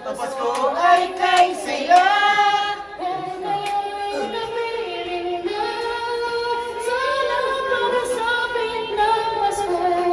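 A female voice singing a melody, holding long notes and sliding between them.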